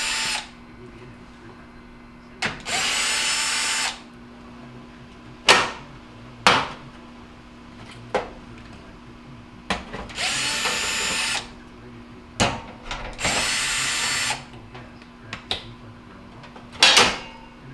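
Power drill or driver backing screws out of the sheet-metal back panel of an electric range, in four short runs of about a second and a half each. Sharp metallic clicks fall between the runs.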